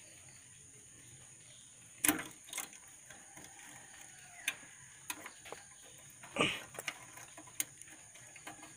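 Scattered small clicks and knocks of hands working a motorcycle throttle cable's return spring and cap loose, with a louder knock about two seconds in and another a little past the middle.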